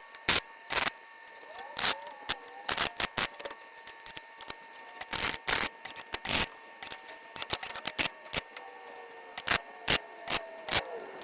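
Harbor Freight flux-core wire welder laying short tack and stitch welds on thin sheet-metal patch panel, a string of brief crackling bursts at irregular intervals, about one or two a second.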